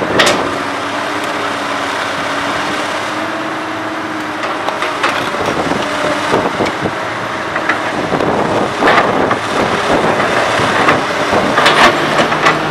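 Komatsu PC200 hydraulic excavator's diesel engine running under working load as it digs. Several sharp knocks and crunches come through it, about a second in, near the middle and near the end.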